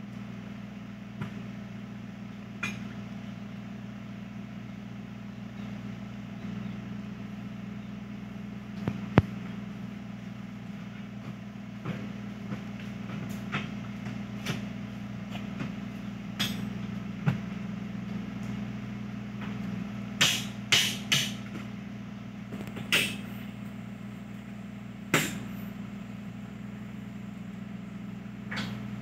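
A steady low mechanical hum, like an engine or motor running, with scattered sharp knocks and clicks over it, the loudest coming in a quick cluster about two-thirds of the way through.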